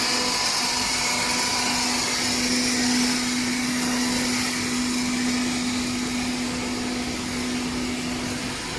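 Continuous conveyor frying machine running on test: its electric motors and pumps (circulation pump, mesh-belt conveyor drive) give a steady hum with a constant low tone over a hiss. The tone fades near the end.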